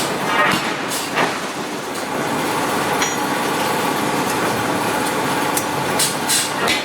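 Forge-shop din: a steady loud industrial rumble and hiss with irregular sharp metallic clanks and knocks, several close together near the end.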